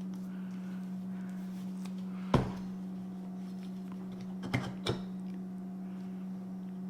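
Steady low electrical hum, with one sharp knock about two and a half seconds in and two lighter clicks near five seconds as alternator parts are handled.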